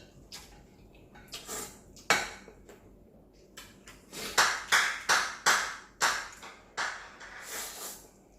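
Eating sounds at a bowl of ramyeon: utensils clinking against the bowl, then a quick run of short, sharp noisy sounds from about four to six seconds in.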